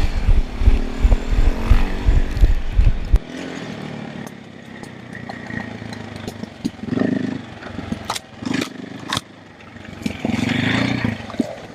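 KTM 450 EXC enduro motorcycle's single-cylinder four-stroke engine running with a heavy low rumble that drops away abruptly about three seconds in. It is followed by quieter running and clatter with a few sharp clicks.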